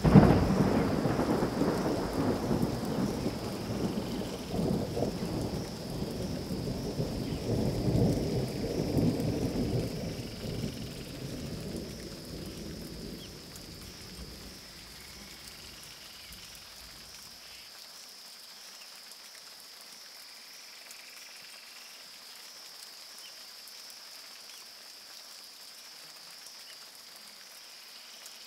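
A long roll of thunder that starts suddenly and loud, rumbles on in waves and fades out after about fourteen seconds. Steady rain and a faint high steady tone carry on underneath.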